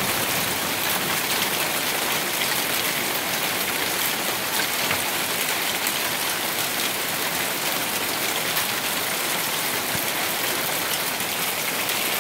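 Small hailstones falling steadily on a roof and the ground: a dense, even patter of countless tiny clicks.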